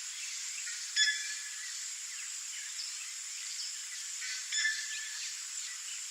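Buff-necked ibis giving two short calls, one about a second in and one about four and a half seconds in, over a steady hiss.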